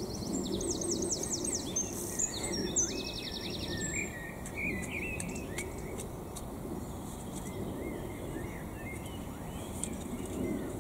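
Songbirds singing: fast runs of repeated high notes in the first few seconds, then warbling phrases, thinning out to scattered calls. Under them, the steady soft scrape of a garden rake being drawn through loose soil.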